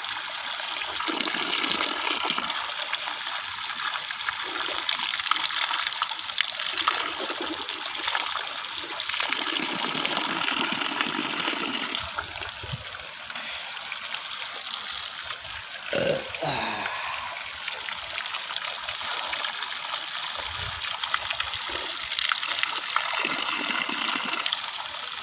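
Running water, a steady rush and trickle.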